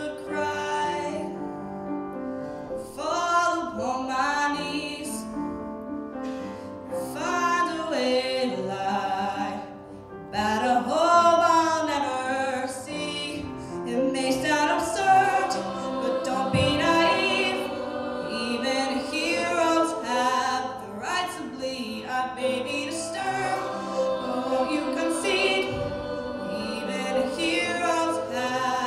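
Middle-school choir singing with live instrumental accompaniment.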